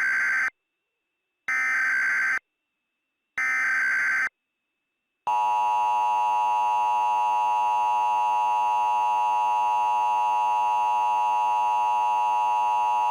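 Emergency Alert System header: three short bursts of digital data tones about two seconds apart, the first already under way. About five seconds in, the steady two-tone EAS attention signal starts and holds for about eight seconds before it cuts off suddenly. Together they announce the start of an emergency alert.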